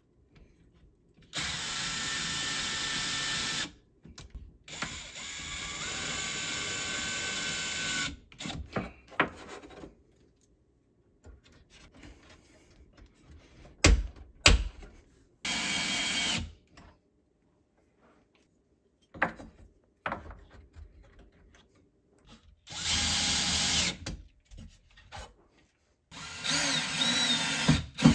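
Cordless drill running in about five short bursts, each a few seconds long, as small metal L brackets are fixed into a wooden cabinet. A couple of sharp knocks come about halfway through.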